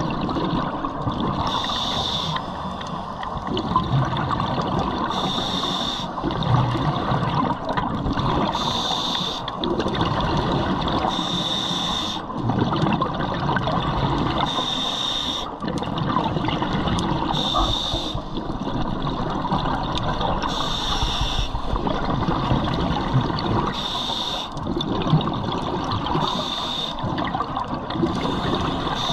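Scuba diver breathing through a regulator underwater: a short hiss on each inhale, about every three seconds, alternating with the bubbling rumble of the exhaled air.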